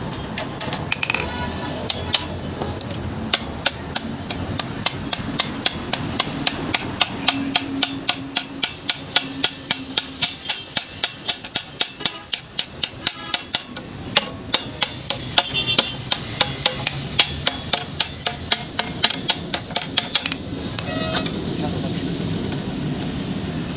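Hammer striking iron in a steady rhythm, about three ringing blows a second, as the rebar is forged; the blows stop near the end.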